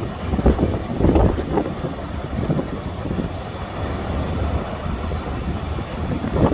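Gale-force storm wind buffeting the microphone: a loud, steady low rumble with irregular gusts surging, the strongest about half a second and a second in.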